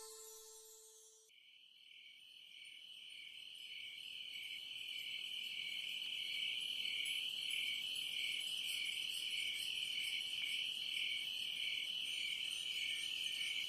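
The background music fades out just after the start, then a steady, high-pitched insect trill fades in and holds, pulsing slightly a little more than once a second.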